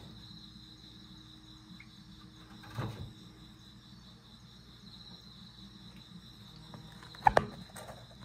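Box turtles shifting on a stainless steel tray: a hard knock a little under three seconds in and a sharper, louder knock with a short metallic ring about seven seconds in, against a steady high-pitched whine.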